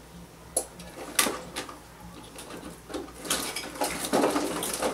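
Kitchen utensils clinking and knocking as someone rummages through them by feel: a few separate clinks, then a denser run of clattering over the last two seconds.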